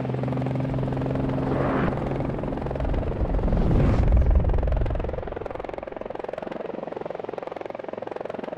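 A steady low mechanical hum that swells into a loud whooshing rumble three to four seconds in, then settles to a quieter steady buzz.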